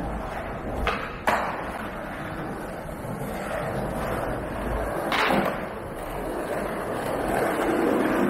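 City street ambience at night: a steady wash of traffic noise, with three sharp knocks, two close together about a second in and one about five seconds in, and the noise swelling near the end as a vehicle comes close.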